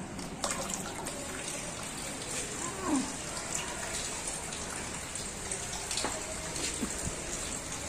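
Steady rain falling on a flat concrete rooftop, with scattered individual drops ticking and splashing in the puddles.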